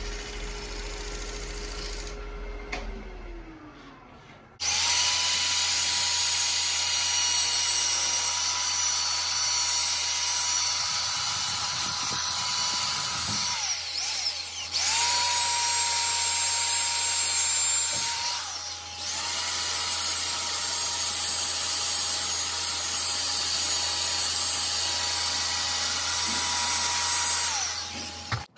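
Wood lathe running with a steady hum that falls in pitch about three seconds in. Then a hand-held power drill fitted with a sanding disc runs in three long stretches, with short pauses between them, as it power-sands the spinning oak bowl.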